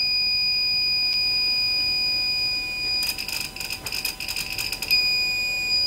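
Microtek inverter's buzzer sounding one continuous high-pitched beep that never breaks: the false overload alarm of a hung control IC, which keeps beeping even with the on/off switch turned off. About three seconds in, a rapid crackling runs over the tone for about two seconds.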